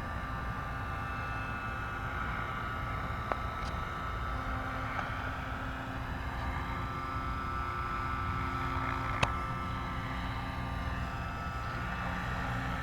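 Scale Airwolf RC helicopter flying, its motor and rotors giving a steady whine over a low drone, with wind on the microphone. Two sharp clicks, about three and nine seconds in.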